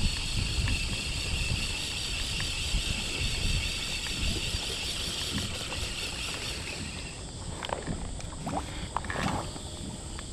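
Wind rumbling on the microphone and water moving around a kayak, with a steady high hiss that fades out about seven seconds in, followed by a few light knocks.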